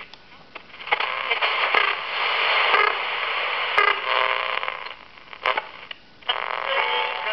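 Universal PTR-62B transistor radio being tuned across the AM band through its small speaker: hiss and crackle with stations coming in and fading out. It is quieter for the first second and again about five seconds in, with a station's steady tones near the end.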